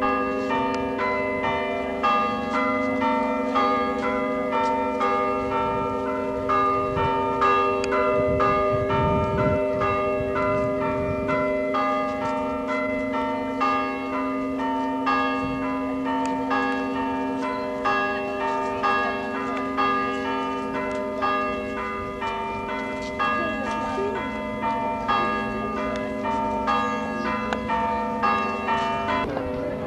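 Church bells ringing changes: a steady, rapid run of strikes at different pitches, each bell sounding in turn, as rung for a wedding.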